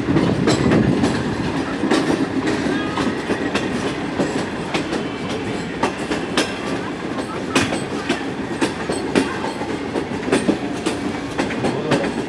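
Train running at speed, heard from on board: a steady rumble of wheels on rails with irregular clicks and knocks as the wheels pass over rail joints.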